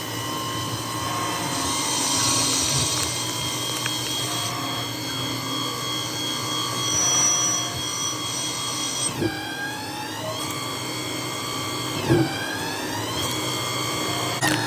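A CNC lathe cutting with a 5 mm Kyocera grooving insert, giving a steady whine of several pitched tones over the cutting noise. After about nine seconds the tones fall in pitch again and again, with short sharp knocks as the cut changes.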